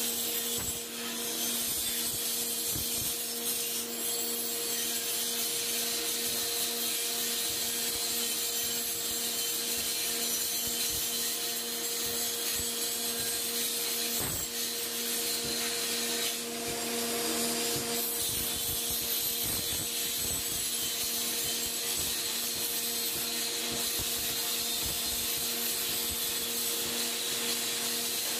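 Power grinder running steadily under load, a constant motor whine with a high, rasping hiss of the abrasive working the material.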